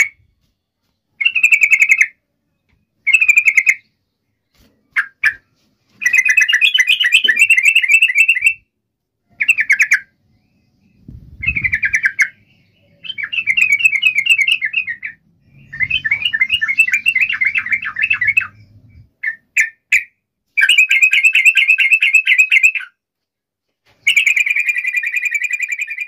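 Yellow-vented bulbul (trucuk) singing: loud phrases of fast chattering notes, each half a second to two and a half seconds long, with short pauses between them.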